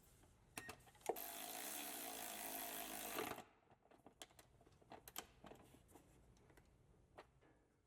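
Work on the driveshaft carrier bolts: a steady mechanical whir lasting a little over two seconds, with sharp clicks before it and scattered light clicks and taps after it.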